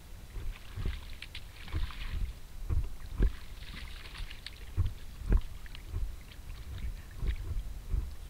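Kayak being paddled: two longer swishes of water about one and four seconds in, over irregular low thumps and bumps.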